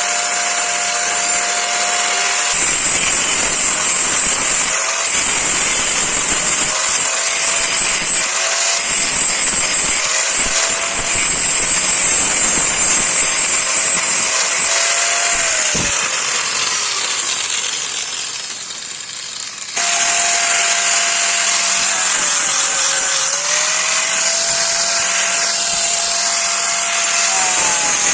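Electric grinder running and grinding a steel knife blade, with a high hiss of metal on abrasive; the motor's pitch dips several times as the blade is pressed on and recovers as it eases off. The sound drops briefly and jumps back abruptly about two-thirds through.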